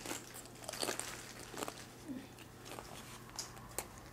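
Quiet chewing of crisp fried taco shells, with a few scattered sharp crunches.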